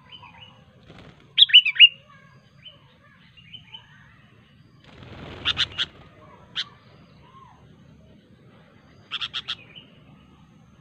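Sooty-headed bulbul calling: a loud burst of quick, bending whistled notes about a second and a half in, scattered softer notes, then short sharp notes in runs of three or four. A soft rustle, with sharp notes over it, comes about five seconds in.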